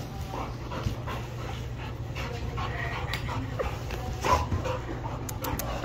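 A dog panting, with a few faint clicks over a steady low hum.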